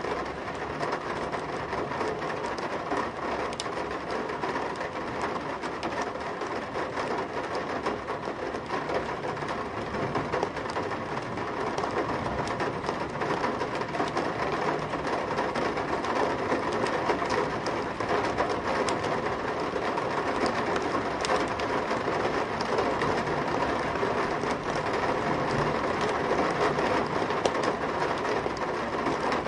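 Heavy rain drumming steadily on a metal window sill, heard from indoors: a dense patter of drops striking the metal, with many sharp ticks.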